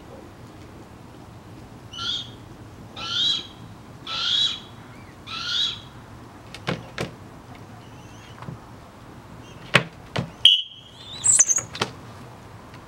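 Downy eyas northern goshawk (a male of albidus/atricapillus stock) calling four times, about a second apart. Later come a few sharp knocks and a short high whistle that steps up in pitch near the end.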